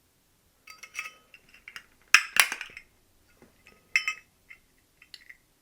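Steel pliers clinking and clicking against a Zippo lighter's metal case as they grip and twist at its welded hinge to pull it off. There are a few separate sharp metallic clicks, the loudest about two and a half seconds in.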